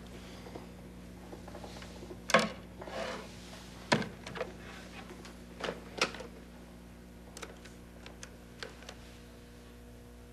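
A rotary desk telephone being handled and dialed: a scattering of clicks and clunks from the receiver, cradle and dial, the loudest about two and four seconds in, over a steady low hum.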